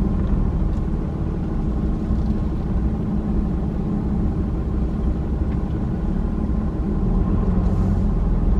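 Vehicle driving, heard from inside the cabin: a steady low engine and road rumble.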